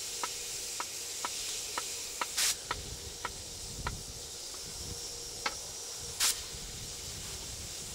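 Steady hiss of a gas canister stove burning under a camping pressure cooker, with light clicks about every half second and two short, louder hisses, one a couple of seconds in and one near the end.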